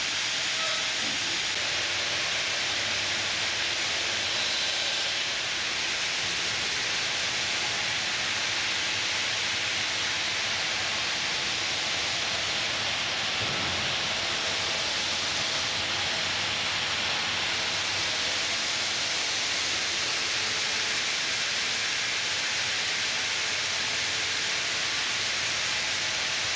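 Ring-system granite cutting machine running, a steady even hiss of the cutter grinding through granite, with a faint machine hum underneath.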